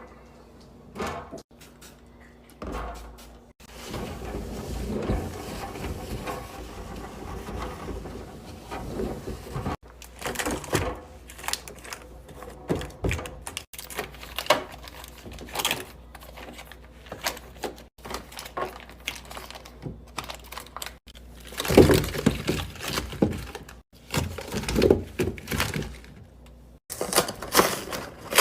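Groceries being unpacked and set into a refrigerator: plastic containers, bottles and packaging knocking and clattering, with fridge drawers and bins sliding. The sound comes in short segments that cut off abruptly several times.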